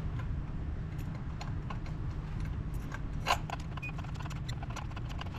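Spark plug socket and extension turned by hand, threading a new spark plug into the cylinder head: scattered light metal clicks, with one louder click about three seconds in, over a steady low hum.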